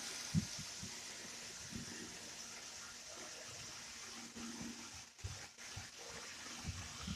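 A steady low hiss, with a short soft thump about half a second in and a few weaker ones later.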